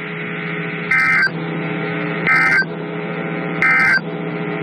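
Emergency Alert System end-of-message data bursts: three short, identical digital warbling bursts about a second and a half apart, the signal that closes the weather radio warning. A steady low hum and hiss runs underneath.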